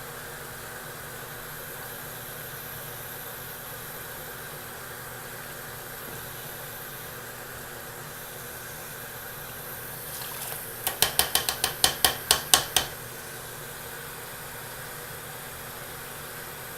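A steady mechanical hum, broken about two-thirds of the way through by a quick run of about a dozen sharp, hard taps, roughly six a second, lasting about two seconds.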